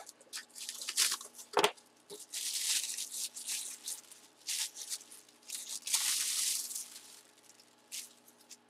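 Tissue paper rustling and crinkling in bursts as a baseball is unwrapped by hand, with a sharp knock about a second and a half in.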